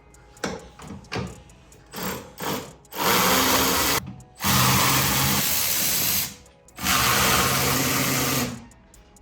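A handheld power drill running in three bursts of one to two seconds each, after a couple of short trigger pulls, as parts are unfastened during a vehicle teardown.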